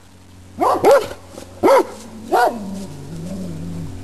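A dog barks four times, two quick barks then two spaced about three-quarters of a second apart, each bark rising then falling in pitch.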